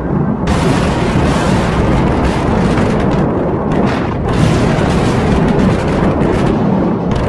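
Explosions from an air strike: a dense, continuous rumble of booming blasts, turning harsher and hissier about half a second in.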